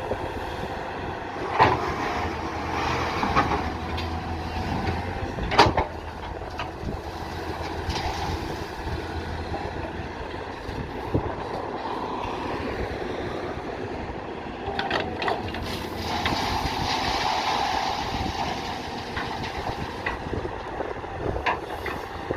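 Diesel engine of a heavy construction machine running steadily, with sharp metallic clanks about one and a half and five and a half seconds in.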